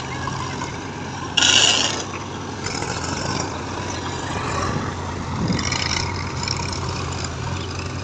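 JCB 3DX backhoe loader at work, its diesel engine running steadily, with a short loud burst of noise about a second and a half in.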